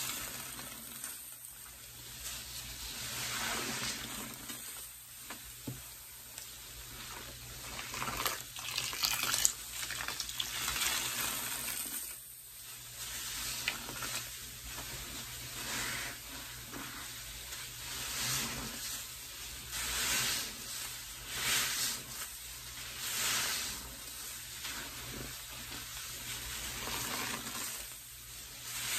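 Soapy sponges squeezed and worked in a bucket of pine cleaner suds: wet squishing and the sizzling crackle of suds. The sound swells and fades every second or two, with bursts of crackling.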